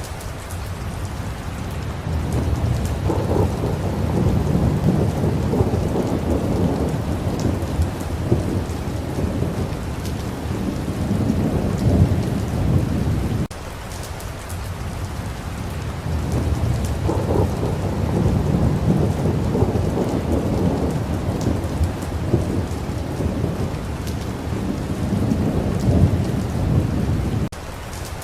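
Steady rain falling, with two long rolls of thunder rumbling low; each swells and churns for about ten seconds and then cuts off suddenly, the second repeating the first.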